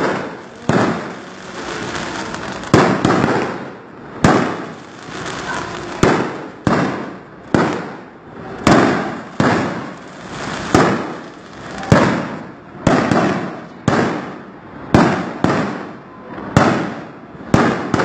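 Aerial firework shells bursting in a rapid barrage, about one loud bang a second, each bang followed by a fading tail of noise.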